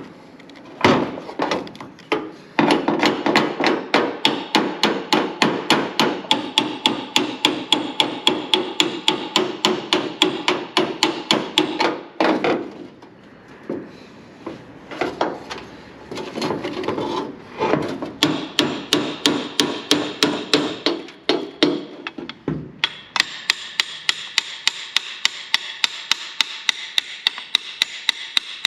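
Hand hammer striking metal in quick, even blows, about four a second, with a short break in the middle; the last several seconds are a very regular run of blows with a bright ringing tone.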